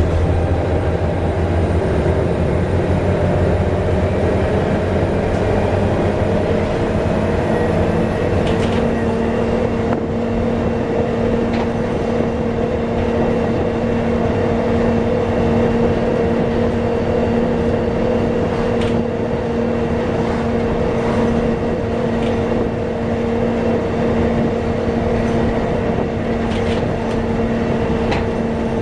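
Volvo B7TL double-decker bus running, heard on board: a whine rises in pitch over the first several seconds, then holds a steady pitch with a second tone an octave above it, over the engine and road noise. A few sharp clicks or rattles come in the second half.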